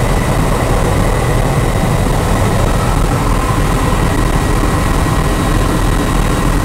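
Helicopter engine and rotor noise heard from inside the cabin in flight: a loud, steady drone with a faint, constant high whine.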